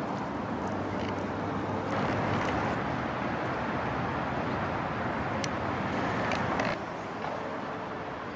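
Steady outdoor rushing noise of distant traffic, with a few faint short ticks; it steps down a little in level about two-thirds of the way through.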